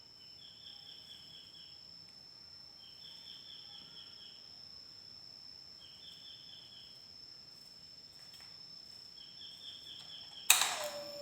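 Insects chirping in short trills that repeat every few seconds over a steady high-pitched insect drone. Near the end, a sudden loud strike gives way to a steady ringing tone.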